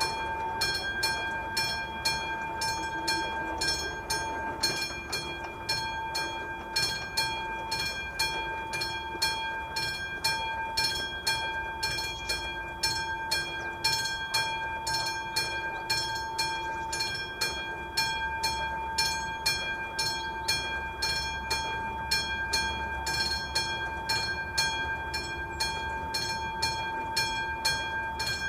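Electromechanical warning bell of an AŽD 71 level-crossing signal ringing in a fast, even stream of strokes, the warning that a train is approaching.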